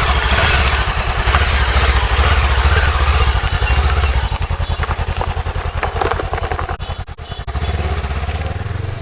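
Motorcycle engine running with a steady low rumble that eases and wavers around the middle, then picks up again near the end.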